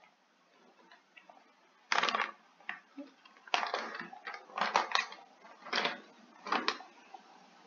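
Plastic snack bag crinkling in short, irregular crackles as it is picked up and turned over in the hands, after about two seconds of quiet.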